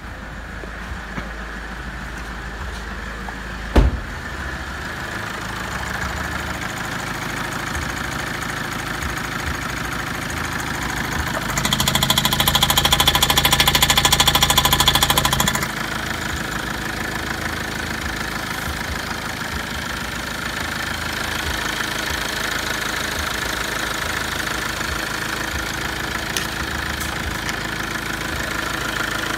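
Toyota 1AD-FTV 2.0 D-4D four-cylinder common-rail turbodiesel idling steadily with its oil filler cap off. A single loud thump about four seconds in, and from about twelve to sixteen seconds in the engine is louder, heard straight down the open oil filler neck.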